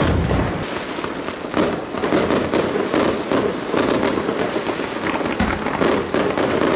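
Fireworks display: a deep boom from an aerial shell bursting at the start, then dense crackling from low crackle bursts, with another low thump a little after five seconds.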